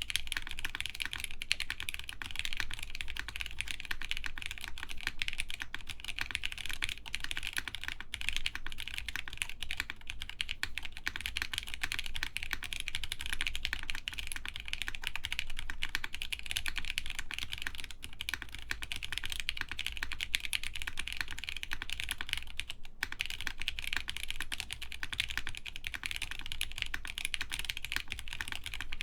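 Continuous fast typing on an Axiom Studios Typ60 60% mechanical keyboard with lubed OP Black linear switches on a half carbon-fiber plate, a dense stream of keystroke clacks.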